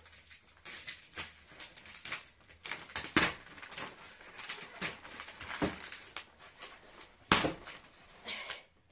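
Scissors cutting the thick plastic wrap of a rolled, compressed mattress: irregular snips and crinkles of plastic, with sharper cracks about three, five and a half and seven seconds in.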